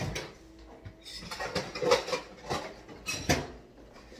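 Dishes and cutlery clinking and knocking against each other, a run of irregular sharp clatters with the loudest about two seconds in.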